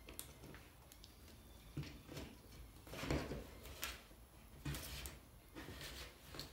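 Faint handling noise of a wiring harness being worked by hand: a series of soft rustles and light clicks as loose wires and the pinout sheet are moved about, a little louder about three seconds in.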